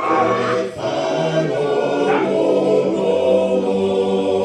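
Voices singing a Tongan lakalaka song in long held notes, with short breaks for breath.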